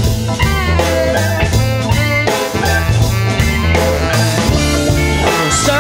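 Rock song with guitar and a steady drum beat.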